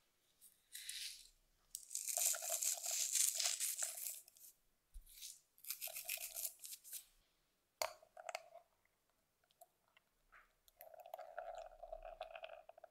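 Salt being added to grated tomato in a glass bowl, heard as gritty crunching in a few spells, the longest in the first half. Near the end, extra-virgin olive oil is poured in.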